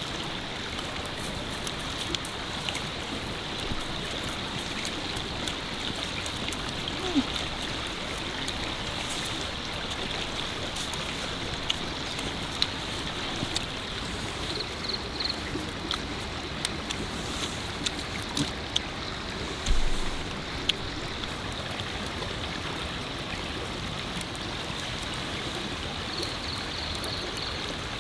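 Steady rush of a forest stream running, with scattered small clicks and knocks and a low thump about 20 seconds in.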